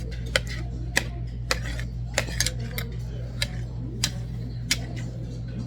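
Eating utensils clicking against a bowl or dishes during a meal: sharp, irregular taps about every half second to second, over a steady low hum.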